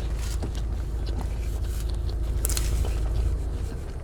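Quiet biting and chewing of a sandwich, with a few faint mouth clicks, over a steady low rumble.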